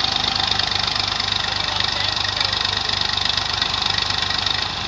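Massey Ferguson 135 tractor's diesel engine idling steadily, with a fast, even chug.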